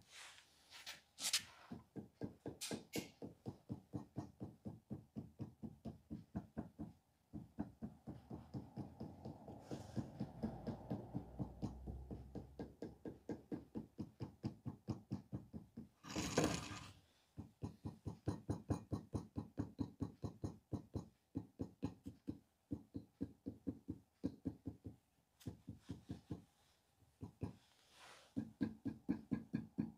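Clay being beaten with a flat sculpting tool: rapid, dull, rhythmic taps at about four a second, in runs broken by short pauses, with a brief noisy rustle about halfway through.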